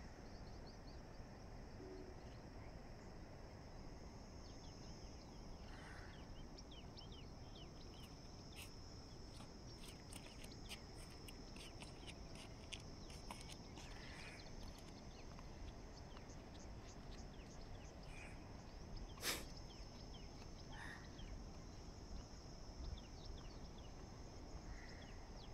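Faint open-air ambience: a steady high insect buzz with scattered short bird chirps and calls over a low background hiss. A single sharp click comes a little past the middle.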